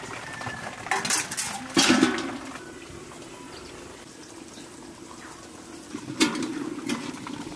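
Steel cookware clattering: a stainless steel lid is set down on a steel kadai, with sharp metal clanks about a second in and again near two seconds. Near the end a spatula clinks against the lid.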